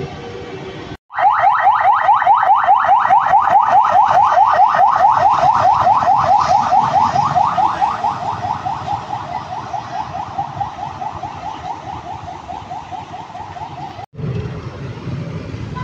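Electronic ambulance siren on a rapid yelp: short rising sweeps repeating several times a second. It starts abruptly about a second in and stops abruptly near the end.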